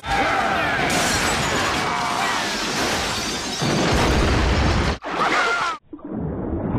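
Cartoon crash effect of a wooden harbour on stilts collapsing: a long, loud smashing and splintering din that deepens into a rumble about three and a half seconds in, then cuts off suddenly. After a short burst, a duller passage with a few steady tones begins near the end.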